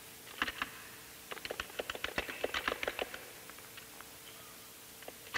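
Keys of a 1968 NLS computer console clicking as text is typed: a couple of strokes, then a quick run of keystrokes for about two seconds that then stops, over a faint steady hum.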